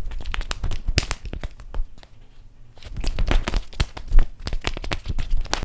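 A household object being crumpled or torn: dense crinkling and crackling with many sharp cracks, quieter for about a second in the middle, then cutting off abruptly.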